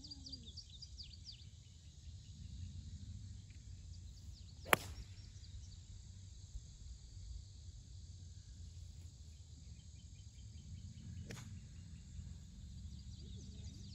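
Golf club striking a ball once, a single sharp crack about five seconds in, over a steady low background rumble with high bird chirps. A much fainter click follows about seven seconds later.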